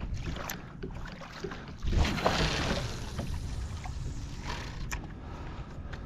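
Kayak moving across open water: water splashing and lapping against the plastic hull, with a louder whoosh about two seconds in and scattered small knocks.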